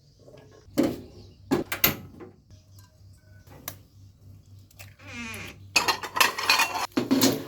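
Kitchenware clinking: a few separate knocks of utensils against dishes, a short warbling sound about five seconds in, then a stretch of busy clattering near the end.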